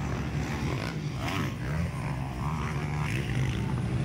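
Motocross dirt bike engines running during a race, heard as a steady, slightly wavering low drone.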